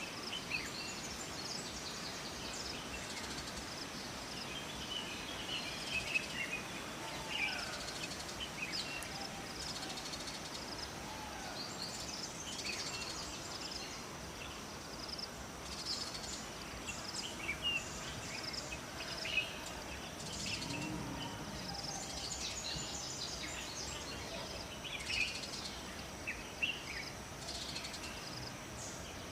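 Forest ambience: a steady rush of running water, with birds chirping and calling in short scattered bursts and a faint steady high hum like insects.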